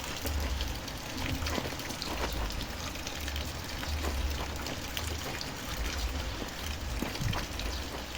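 Steady rain falling, a constant hiss with scattered drop ticks, over a low rumble.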